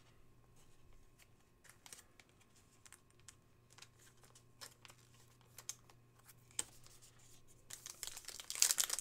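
Glossy trading cards handled and laid down on a table, making scattered light clicks and taps. Near the end a foil card-pack wrapper crinkles loudly as it is picked up.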